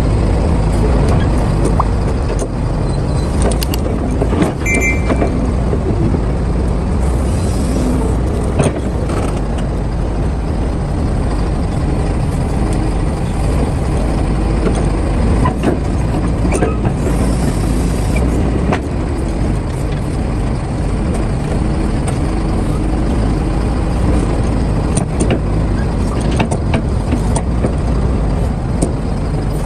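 Heavy diesel earthmoving machinery, an excavator loading a dump truck, running steadily and loud, with occasional sharp clanks and knocks scattered through.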